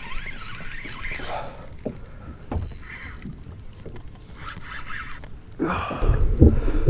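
Water and wind noise around a kayak, with faint breathy vocal sounds; near the end a loud, irregular low rumble of wind buffeting the microphone sets in.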